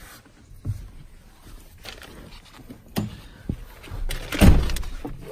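Handling and movement noise inside a pickup truck cab as someone climbs into the driver's seat: rustling and a few knocks, with a heavier thump about four and a half seconds in.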